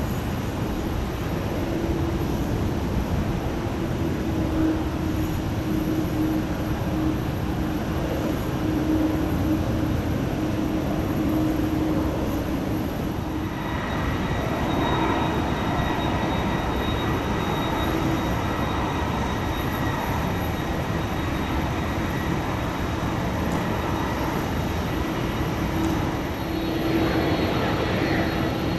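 Airbus A330-300 jet engines at taxi power: a steady rumble with a low hum. About halfway through, a high steady whine joins in as the airliner turns nose-on toward the listener.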